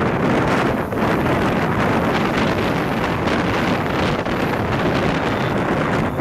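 Heavy wind buffeting the microphone over the steady rumble of a moving train.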